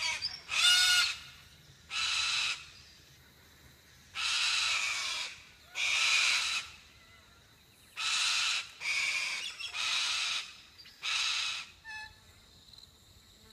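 A bird giving a series of about eight harsh, rasping calls, each well under a second long, one every second or two, the first the loudest. They are the calls of birds scolding an intruder close to their nest.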